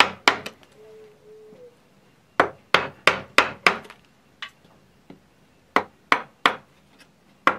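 Sharp knocks of blows driving a wood-carving U-gouge into a hardwood panel. They come in quick runs of three to five, about three a second, with short pauses between runs.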